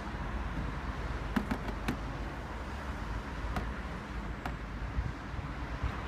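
A handful of short, sharp taps, four in quick succession and then two more spaced out, over a steady low outdoor rumble.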